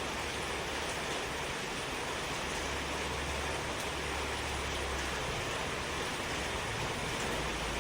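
A steady, even hiss with a low hum underneath; no bird calls stand out.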